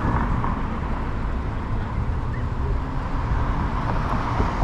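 City street traffic at an intersection, with cars driving through, over a steady low rumble.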